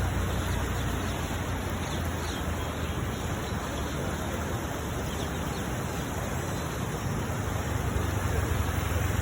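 Steady rushing noise of the Thamirabarani river in flood, with a low rumble that swells near the end.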